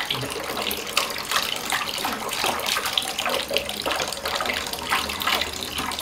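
Tap water running in a thin stream into a glass bowl in a sink, splashing unevenly as a cat paws in the water.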